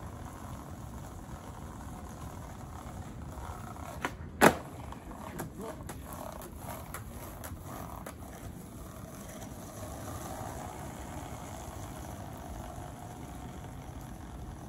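Skateboard on pavement: a light tap, then a sharp loud clack of the board about four seconds in, followed by a few lighter clicks, over a steady background rumble.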